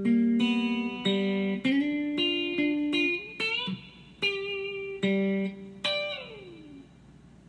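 Electric guitar played clean and slowly with hybrid picking (flat pick plus middle and ring fingers): ringing single-note rolls in G, a string bend about three and a half seconds in, then a two-string barre high on the neck slid all the way down and fading out about a second before the end.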